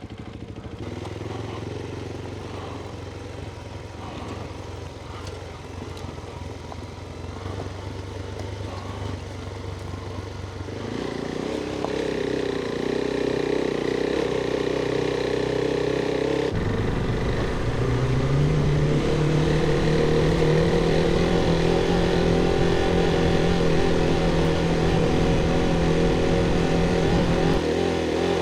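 Adventure motorcycle engine running under way on a dirt track, its note stepping up about a third of the way in and climbing higher and louder again past the middle as the rider opens the throttle.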